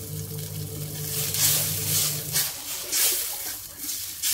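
Watery oyster-sauce mixture in a stainless steel wok, sizzling and splashing as a metal spatula stirs and scrapes it several times. A low steady hum runs under the first half and stops about two and a half seconds in.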